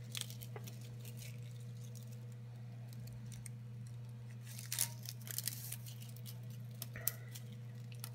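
Small crinkles and clicks of a plastic bottle strip being handled and knotted into net mesh, in a few short clusters about five seconds in and again near seven seconds, over a steady low hum.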